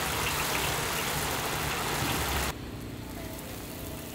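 Food sizzling in hot oil on a street-food stall's pan, with a steady low hum underneath. About halfway through it cuts abruptly to a quieter steady hum with faint crackle.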